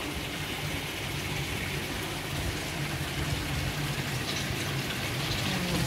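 Steady splashing of water jets from a row of fountain spouts pouring into a swimming pool.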